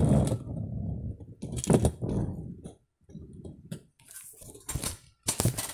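A toy Hot Wheels monster truck rolled across a desktop and set down, a rolling rumble for about the first second, then scattered clicks and knocks from handling the toys.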